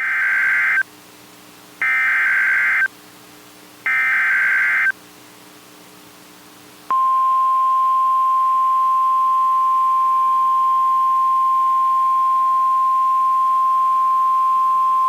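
NOAA Weather Radio alert tones opening a severe thunderstorm warning: three one-second bursts of SAME digital header data, a second apart, then about seven seconds in the steady single-pitch 1050 Hz warning alarm tone starts and holds.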